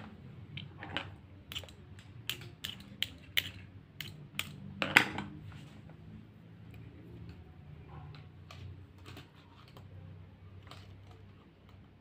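A quick run of sharp clicks and taps, about a dozen in four seconds with the loudest near the middle, then a few faint ticks.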